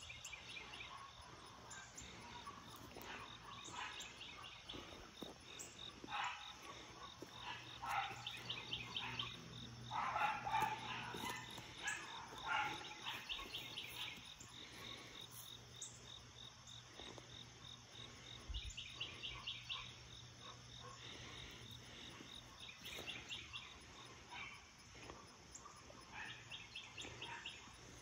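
Outdoor garden ambience: high, rapid chirping trills from wild birds and insects come and go, loudest around the middle, over a faint steady low hum.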